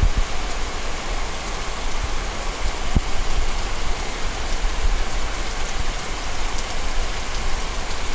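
Steady rain falling and pattering on surfaces, with a low rumble and a couple of brief low thumps, one at the start and one about three seconds in.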